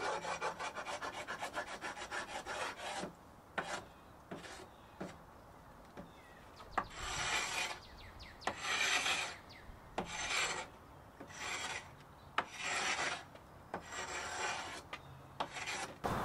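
Hand scraper scraping loose, bubbled-up wood veneer off an old weathered wooden door. It starts as a quick run of short rapid scrapes, then changes to slower, longer scrapes about every second and a half.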